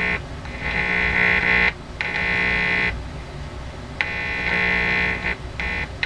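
Emmerson 505 tube radio's loudspeaker putting out a harsh buzz that drops out and comes back three times, which the owner suspects is an intermittent volume control pot.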